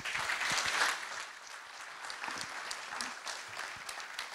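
Audience applauding, loudest in the first second and then settling to a steadier, lower level.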